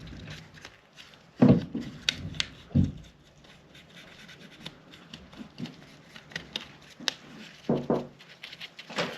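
Handling noises while a pistol is being cleaned: scattered small clicks and taps of parts and tools, with louder knocks at about one and a half and three seconds in and again near the end.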